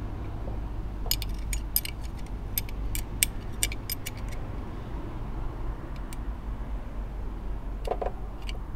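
Steel spanner clinking against a motorcycle brake caliper: a quick run of light metallic clicks for a few seconds, with a few more later, as the spanner levers the caliper pistons back into their bores.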